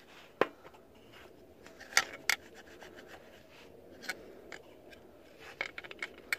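Flat-blade screwdriver scraping the water-pump mounting face of the engine block clean, a faint metal-on-metal scrape broken by a few sharp clicks as the blade catches and taps the block.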